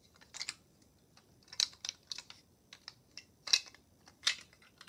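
Scattered light clicks and taps of hard clear plastic: a Funko Bitty Pop figure's small display case and stackable shelf being handled.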